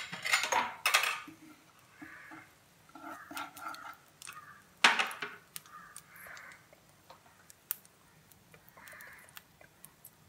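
Utensil knocking and clinking against a nonstick frying pan: two sharp knocks in the first second and a louder one about five seconds in, with a few lighter clicks between.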